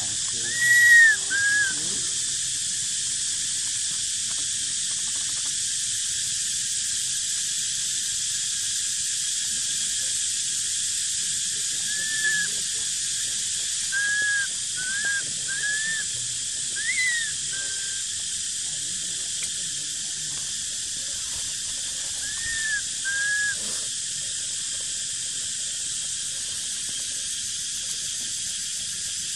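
Infant macaque giving short, arched, squeaky coo calls, singly and in pairs: a loud pair about a second in, a run of them in the middle, and another pair later. A steady high hiss runs underneath throughout.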